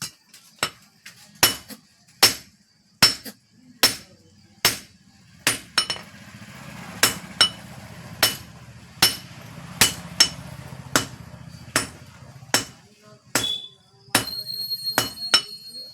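Blacksmith's hand hammer forging steel on an anvil: sharp metallic blows at a steady pace of a little over one a second, each with a short ring. A low steady hum runs under the middle of the stretch, and a high ringing tone comes in near the end.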